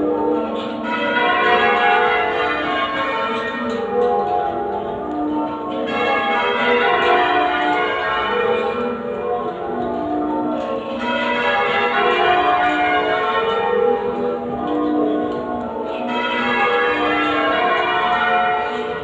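Change ringing on a ring of eight church bells, a 1952 Mears & Stainbank ring in F#, rung half-muffled. The bells strike in quick, even succession, with every other round sounding clear and the next dulled by the muffles, giving the alternating open-and-muffled echo.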